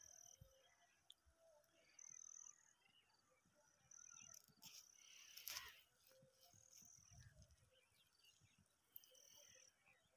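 Near silence, with faint short high-pitched chirps repeating about every two seconds and a brief rustle about halfway through.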